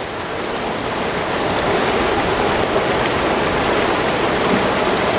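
Swift river water rushing steadily past the bank, an even, loud roar of flowing water.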